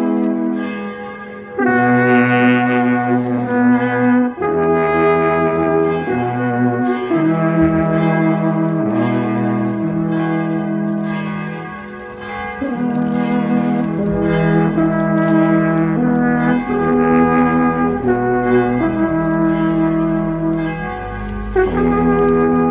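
Three wooden alphorns playing a slow tune together in harmony, in long held notes, with short breaks between phrases about a second and a half in and around twelve seconds in.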